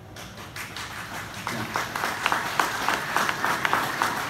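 Audience applauding: a few scattered claps at first, building to dense, steady clapping about a second and a half in.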